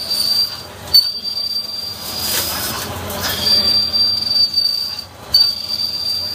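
CNC lathe turning tool squealing in the cut during dynamic roughing: a steady high-pitched squeal over the cutting noise, with the feed rate raised to about 0.023 inch per revolution. It drops out briefly three times and comes back with a sharp hit about a second in and again near the end.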